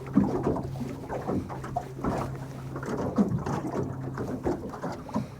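Water lapping and splashing in small irregular slaps, over a steady low hum.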